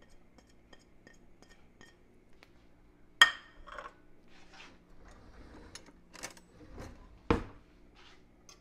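Kitchen cookware and utensils clinking and knocking. A sharp, ringing clink comes about three seconds in and a heavier knock about seven seconds in, with lighter clicks and scrapes between them.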